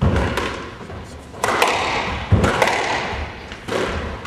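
Squash rally: rackets striking the ball and the ball cracking off the court walls, several sharp impacts about half a second to a second apart, mixed with heavy thuds from the players' feet on the wooden floor.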